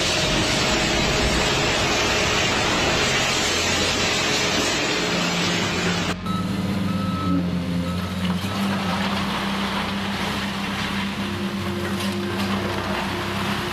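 Heavy demolition machinery at work: about six seconds of loud, dense noise, then a diesel engine running steadily with a low hum and a brief higher tone.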